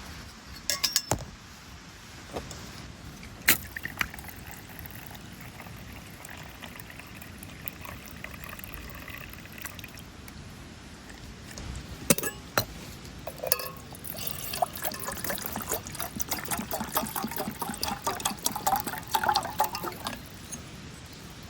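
Water being poured, with a few sharp knocks and clinks of metal or glass camp gear; about two-thirds of the way through, a dense run of splashing and crackling strokes lasts several seconds.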